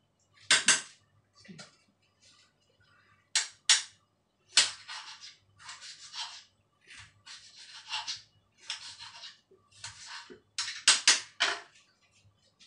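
Kitchen knife cutting red chillies on a chopping board: sharp knocks of the blade on the board with short scraping strokes between them, and a quick run of knocks near the end.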